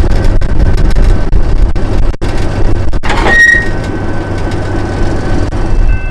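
Heritage diesel locomotive running, a loud, deep engine rumble with many sharp clicks and knocks over it. A brief high squeal comes about halfway through.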